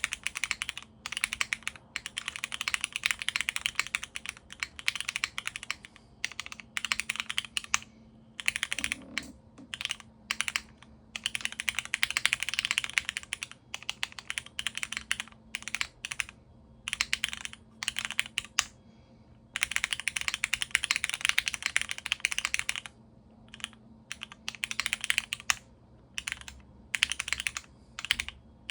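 Typing on a gasket-mounted Keycult No.2 mechanical keyboard with a polycarbonate plate, lubed and diamond-paste-polished linear Cherry MX Black switches and GMK keycaps: fast runs of keystrokes broken by short pauses.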